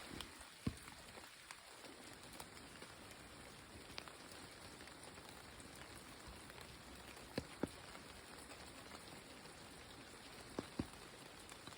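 Light rain falling on myoga (Japanese ginger) leaves: a soft, steady patter, with a few louder single drops landing close by, twice in quick pairs.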